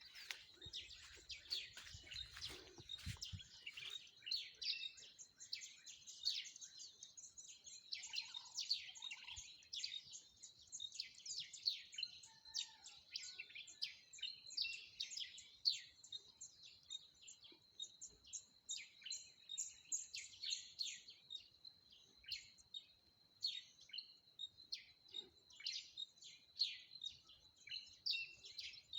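Many small birds chirping and tweeting, a dense run of short, rapid high chirps with a steady thin high tone underneath.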